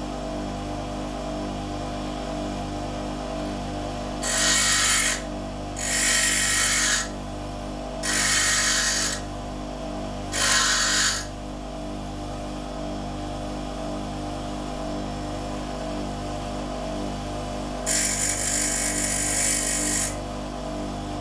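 Bench grinder motor running steadily, with metal pressed against the grinding wheel in five bursts of harsh grinding: four short ones in quick succession from about four seconds in, and a longer one near the end.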